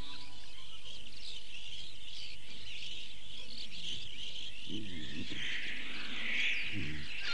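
Night-time nature ambience: a steady chorus of chirping insects and birds. A few brief low wavering calls come in about five seconds in and again near the end.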